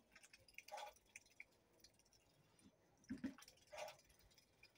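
Muscovy duck dabbling its bill through a tub of water and chopped collard greens: a few faint, short wet slurps and splashes.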